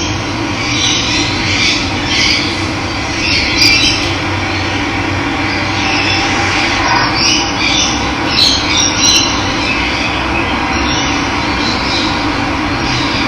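Running water rushing steadily, with birds calling and chirping over it in short bursts, several of them close together around four seconds in and again around eight to nine seconds in.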